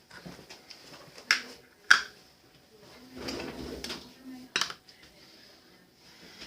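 Slime being stretched and handled by hand, with three sharp clicks or pops and a softer squishing patch in the middle.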